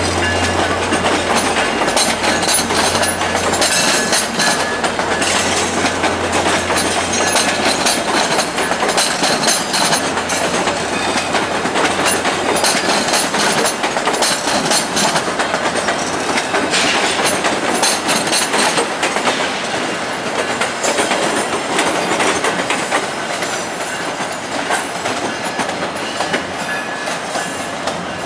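VIA Rail LRC passenger cars rolling past, their wheels clattering over the track with irregular sharp clicks. The sound fades gradually in the last several seconds as the train moves away.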